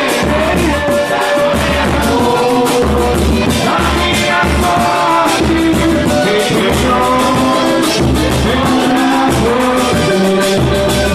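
Live pagode band playing a song, with a sung vocal line over a pulsing bass and a steady, busy percussion beat.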